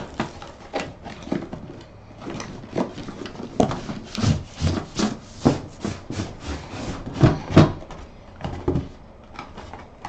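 Cardboard shipping box being opened by hand: cardboard scraping and rubbing, with irregular knocks and rustles as the flaps are pulled open and the inner box is lifted out.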